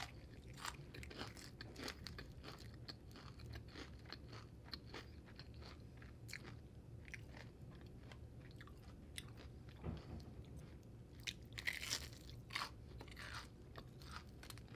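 Close-up chewing and crunching of a fried onion ring: many small crisp crunches, with a few louder bites near the end.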